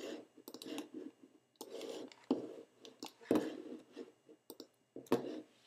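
Faint clicks and soft rustling at irregular intervals, from a computer mouse being clicked and moved across a desk.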